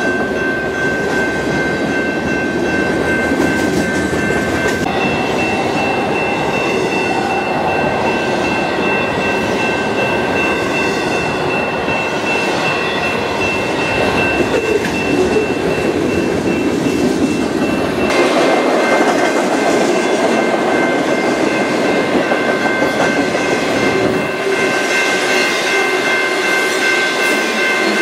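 Freight train of autorack cars and flatcars rolling past, a steady loud rumble and rattle of wheels over the rail joints. Thin, steady, high-pitched tones ring over the rumble.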